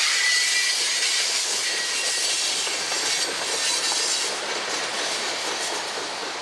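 Coal train's hopper cars rolling past on the rails, steel wheels clacking and hissing, with a faint wheel squeal near the start; the sound slowly fades toward the end.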